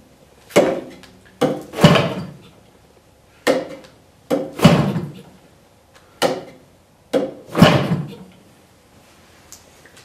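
A rubber-coated chicken stick flipping the 24x8 beechwood propeller of a DLE 55 gas engine by hand, the prop swinging through against compression. This gives a series of sharp knocks, several followed within half a second by a louder thud with a short ringing tail, about every second and a half.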